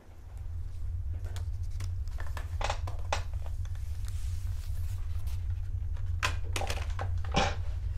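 A steady low rumble starts as the sound opens, with scattered soft clicks and rustles over it, a few louder ones about three seconds in and again near the end.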